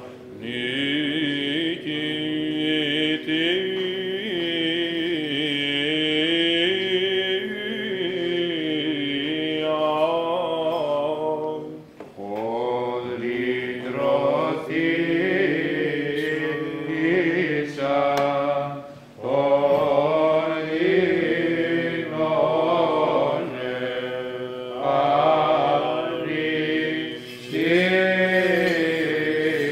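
Byzantine chant: a sung melody over a held low drone, with short pauses between phrases about twelve and nineteen seconds in.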